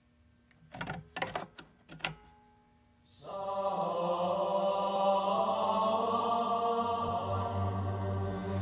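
An AAA battery is pushed into an old Rayovac 3-in-1 charger, making a short run of plastic-and-metal clicks and rattles against the spring contacts between about one and two seconds in. About three seconds in, background music with long held notes starts and carries on.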